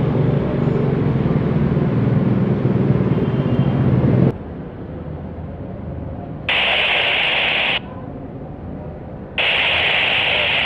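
Jet airliner engines rumbling for about four seconds, cutting off suddenly. Then airband radio hiss keys on and off twice, an open transmission without speech.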